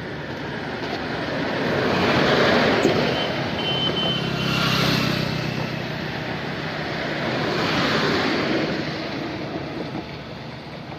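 Road traffic passing on a highway: three vehicles go by, each a rush of engine and tyre noise that swells and fades, the loudest about two seconds in.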